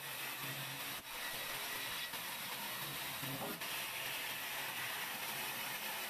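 Large sawmill band saw ripping a wide wooden plank fed by hand: a steady, high-pitched cutting rasp.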